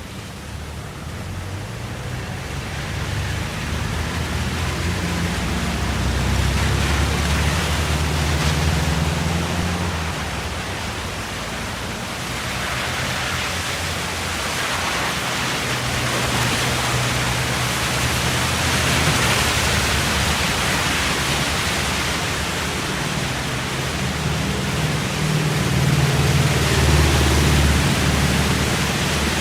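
Road traffic: a continuous rush of vehicles passing, tyre noise swelling and fading as each goes by, with a low engine hum that grows louder a few times.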